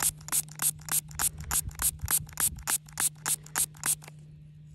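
Rapid spritzing from a small hand spray bottle of distilled water, about four to five short sprays a second, stopping about four seconds in. The water is wetting a mud-caked silver coin to loosen the dirt.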